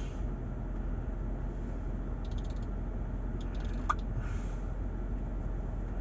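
Steady low rumble of a car's cabin in slow traffic during heavy rain. A few faint quick runs of ticking come in the middle, and a short high chirp about four seconds in.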